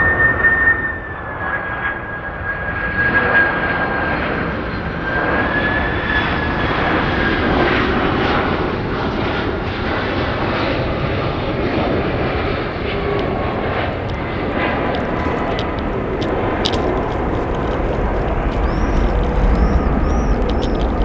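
Boeing 767-300's twin jet engines on landing approach: a steady roar with a high fan whine that fades after about eight seconds, then a deepening rumble building near the end as the airliner descends over the runway.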